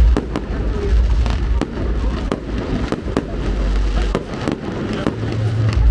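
Fireworks bursting: a few deep booms among many sharp cracks.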